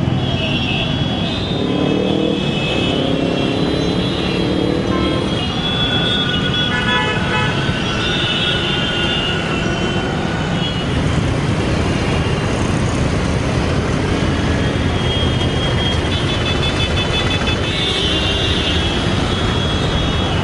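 Busy city road traffic: a steady rumble of engines and tyres, with vehicle horns honking again and again, in several clusters.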